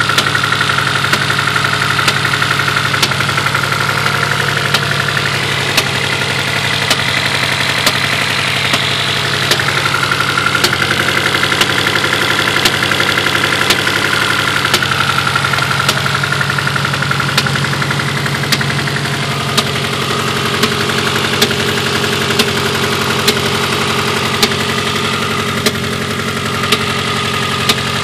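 Engine idling steadily with a sharp tick or pop breaking in irregularly, about once a second; the owner suspects a misfire.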